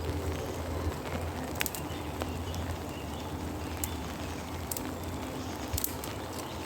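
Steady rain ambience with scattered sharp drips tapping a few times, as on a tarp shelter.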